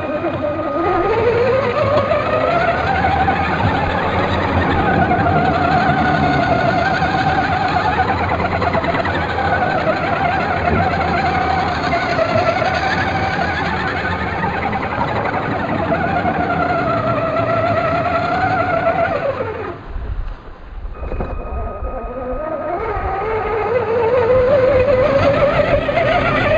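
Brushless RC car motor whining as it speeds up, then holding a wavering high pitch at speed for a long run. It drops out for a moment about twenty seconds in, then winds up again and eases off near the end.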